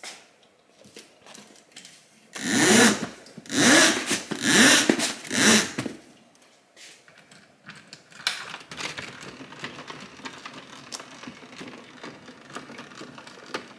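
A roller blind being raised in four quick pulls, each with a loud rattling whirr of its roller mechanism. Then a window latch and sash are worked, giving sharp clicks over a steady hiss.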